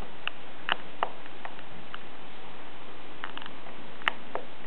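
Scattered light clicks from an iPod's click wheel as a thumb presses and scrolls it, about ten irregular clicks with a sharper one near the end, over a steady hiss.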